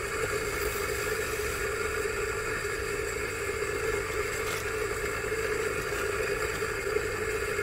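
Electric shop-style coffee grinder running steadily, grinding a seed mix of oats, sesame, split dal and flax seeds on a fine espresso setting.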